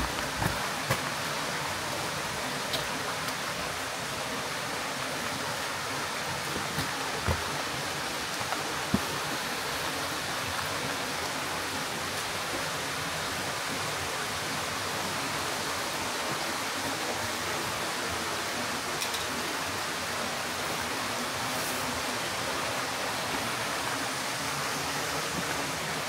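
A stream of running water, a steady, even rush with a few brief sharper splashes in the first nine seconds.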